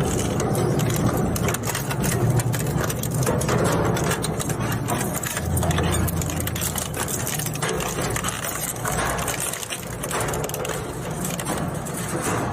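Plastic shredder machine running: a steady low motor hum under dense, irregular crackling and clatter.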